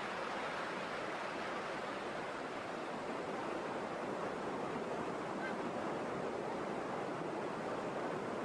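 A steady, even rushing hiss with no distinct events, holding at one level throughout.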